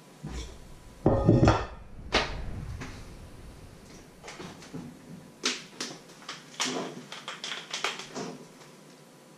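An enamel bowl set down on a wooden cutting board, a loud knock with a brief ring about a second in. It is followed by a scatter of light clicks and knocks as containers are handled on the counter.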